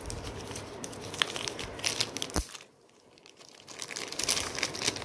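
Plastic bag crinkling as a camera battery is handled and unwrapped by hand, with a sharp click about two and a half seconds in, a short pause, then more crinkling.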